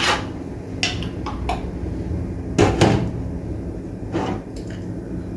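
Kitchen handling noises: a handful of separate knocks and clatters of containers and utensils against a bowl as seasoning is added, the loudest a little past halfway, over a steady low hum.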